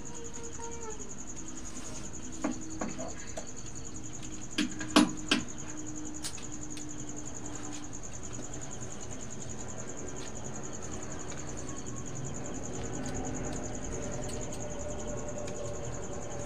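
Steady high-pitched insect trill throughout. A few sharp clinks of metal cookware about five seconds in, as fried pieces are scraped from a wok into a pot of curry.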